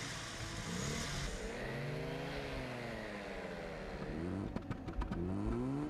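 Car engine running and being revved: its note rises and then falls back about two to three seconds in. It swells again with a few sharp clicks near the end.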